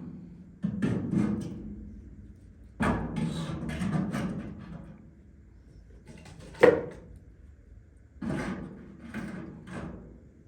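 A series of irregular thuds and knocks with handling noise between them, the sharpest knock about two thirds of the way through.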